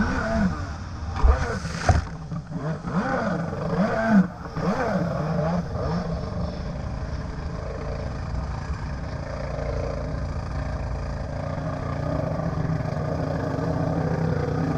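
Stand-up jet ski's two-stroke engine revving up and down as it jumps boat wakes, with two sharp slaps of the hull hitting the water about one and two seconds in. From about six seconds in it settles into a steadier engine note over rushing water.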